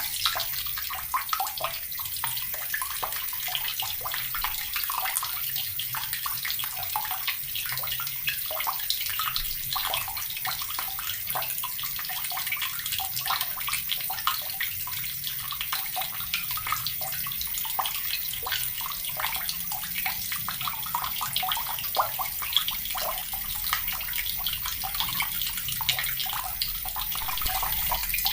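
Water tap running steadily, its stream splashing with a constant hiss and many small splashes and drips.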